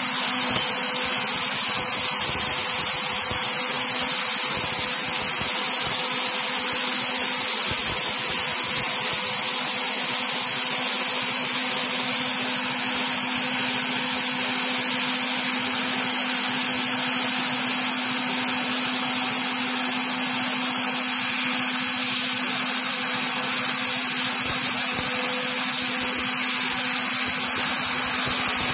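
CNC spindle running with a small end mill cutting a metal plate: a steady machine hum with a constant tone, under a loud, even hiss from the air nozzles blowing on the cutter.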